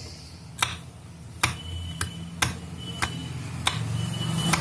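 A series of sharp ticks, about seven, roughly one every half second to one second, over a steady low electrical hum. A faint high-pitched tone comes and goes between them.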